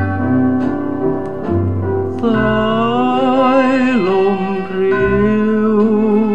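A Thai ballad playing from a mono vinyl record on a turntable. Accompaniment and bass lead in, then a held melody line with vibrato and sliding pitch enters about two seconds in.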